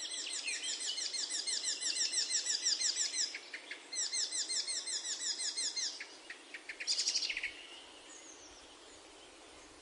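Small bird chirping in two rapid trills of repeated high, falling notes, each a few seconds long, then a short burst of chirps about seven seconds in, followed by faint hiss.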